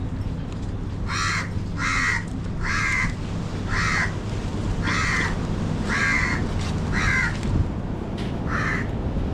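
A crow cawing over and over, about one harsh caw a second, eight caws in a row, over a steady low background rumble.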